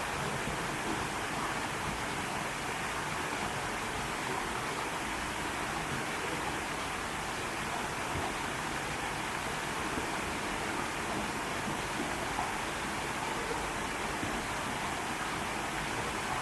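Mountain valley stream flowing, a steady rushing of water.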